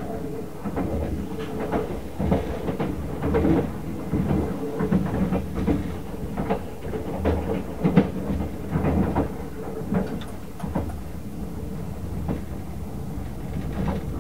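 Ride noise inside a 24 series sleeper coach running at speed: a steady low rumble and hum, with irregular clicks and knocks from the wheels on the rails.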